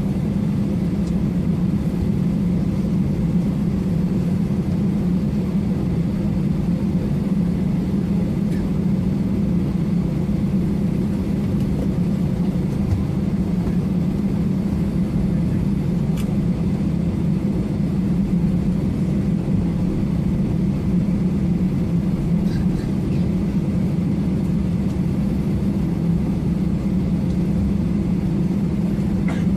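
Jet airliner taxiing with its engines at low power, heard inside the cabin: a steady low rumble with a hiss above it, unchanging throughout.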